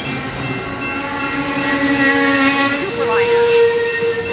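Amtrak Superliner passenger cars rolling slowly past the platform, their brakes squealing in steady tones as the train slows to a stop. About three seconds in, the squeal changes to a single higher pitch.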